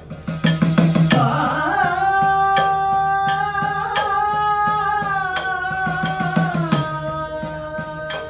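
Sopana Sangeetham singing: a voice holding long notes that bend slowly and step down near the end, over idakka hourglass-drum strokes and sharp ticks keeping time.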